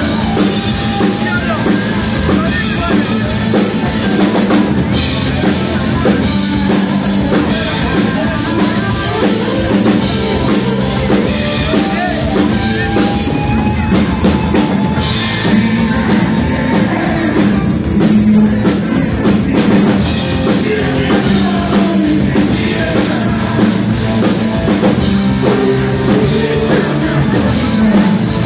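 Live rock band playing loudly and without a break: electric guitar, drum kit and a male singer.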